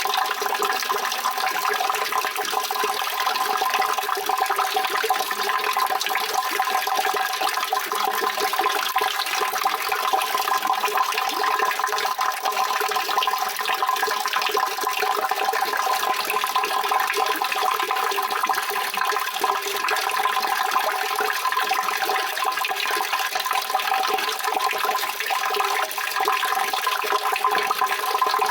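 Continuous running water, a steady rushing hiss that stays the same throughout.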